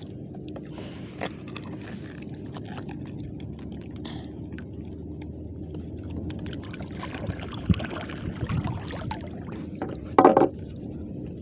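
A small fishing boat's engine runs steadily with a low hum. There is a sharp knock about two-thirds of the way through and a short loud burst near the end.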